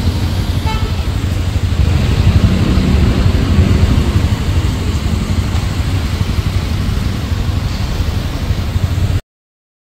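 Motorcycle ride noise: steady wind rumble on the microphone mixed with the bike's engine. It cuts off abruptly about nine seconds in.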